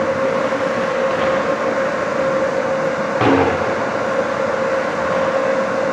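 Steady rushing noise and hum of an indoor ice arena, with a single knock from play on the ice a little over three seconds in.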